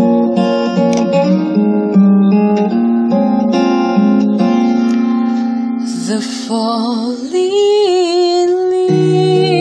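Background music: plucked acoustic-guitar notes, then from about two-thirds through a held melody line with a wavering vibrato, singing-like, over the accompaniment.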